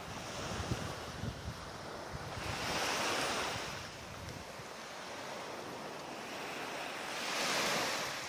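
Small waves washing up on a sandy beach, swelling twice, about three seconds in and again near the end, with wind rumbling on the microphone.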